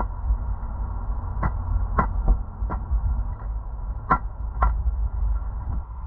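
Low steady rumble with a faint hum and a few scattered sharp clicks: microphone handling noise with the camera held close in the hand.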